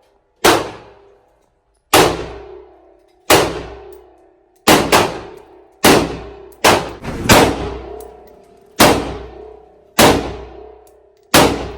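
A string of about eleven gunshots fired one at a time, roughly a second or so apart, with a pair close together in the middle. Each shot has a ringing echo that dies away.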